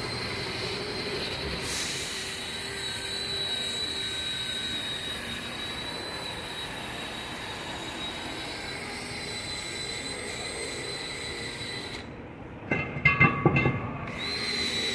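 A steady high-pitched whine over low mechanical shop noise during work on a truck wheel hub. About 13 seconds in comes a quick run of loud knocks and clanks with a short ring, as of metal parts or tools striking.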